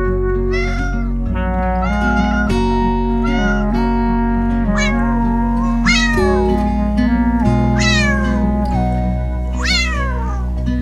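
A cat meowing over and over, about seven calls that rise and then fall in pitch, over steady background music.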